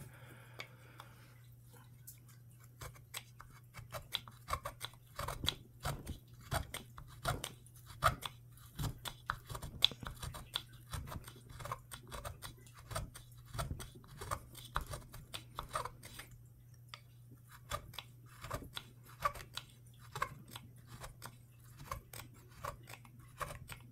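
A small curved half-round gouge pushed by hand, paring chips of wood out of a gunstock's trigger-guard inlet: a long run of short, irregular crunching scrapes over a steady low hum.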